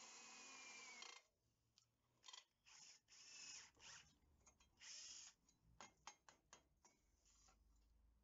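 Cordless drill running as it bores through a steel plate, cutting off suddenly about a second in. It is followed by several short scrapes of a hand tool drawn across the metal, and a few light clicks and taps.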